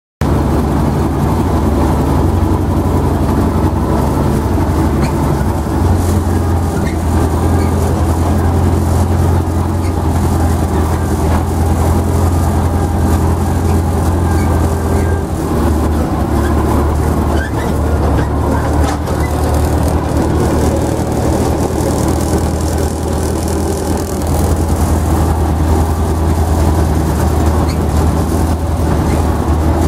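Zetor tractor's diesel engine running steadily while driving, heard from inside the cab. It starts abruptly right at the beginning, and the engine note shifts slightly about six seconds in and again around fifteen seconds.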